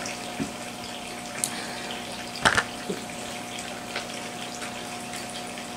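Small plastic toy pieces clicking as they are handled, with one sharper click about two and a half seconds in, over a steady hiss and faint hum.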